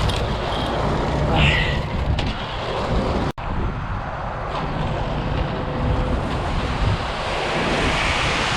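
Steady rumble of a running concrete mixer truck, with wind on the microphone. The sound cuts out for an instant a little over three seconds in.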